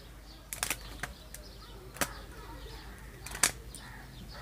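Handling noise from a new motorcycle HT ignition coil: a few short sharp clicks and light rustling as a rubber band is slipped off its bundled plastic-sheathed leads and the wires are uncoiled.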